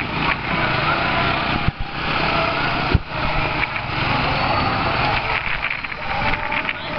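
Small motorbike engines running in moving street traffic. Two sharp knocks come about a second and a half and three seconds in.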